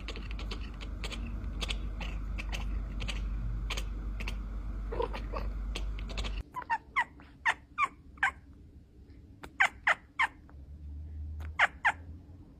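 Kittens mewing in runs of short, high, falling cries, each group a few cries fast. For the first half there is a steady low hum with scattered light clicks, which cuts off suddenly before the mewing starts.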